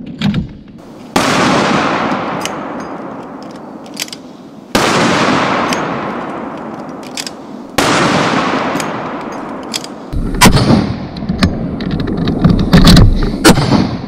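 .50 BMG rifle with a large muzzle brake firing. Three single heavy shots come about three seconds apart, each followed by a long rolling echo. In the last four seconds a quicker cluster of sharper, louder blasts follows.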